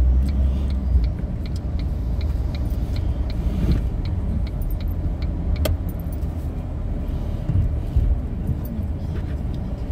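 Car cabin noise while driving in city traffic: a steady low engine and road rumble, with light ticking and rattling over it.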